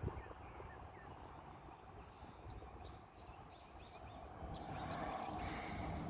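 Faint trailside ambience: a steady high insect buzz with a few small bird chirps in the first second or two. Rustling and footsteps grow louder toward the end.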